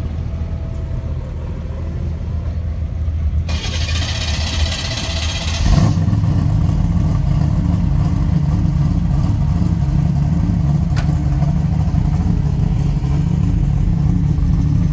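The 1967 Camaro SS drag car's engine being started: about two seconds of cranking noise, then it catches about six seconds in and runs steadily and louder.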